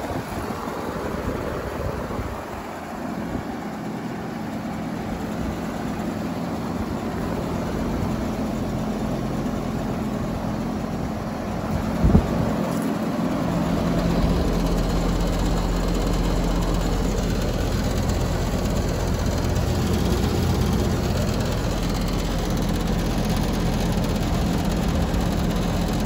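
2019 Oxbox 3-ton heat pump outdoor unit running: a steady hum from the compressor and fan. There is a single knock about twelve seconds in, and the low hum grows stronger from about fourteen seconds on.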